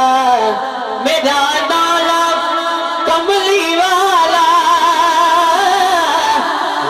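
Sung devotional naat: long, wavering held notes with gliding ornaments over musical accompaniment.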